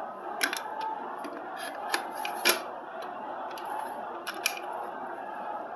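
A few sharp clinks and taps on a small stainless-steel bowl as ground spices are added to it, the loudest about two and a half seconds in, over a steady low hiss.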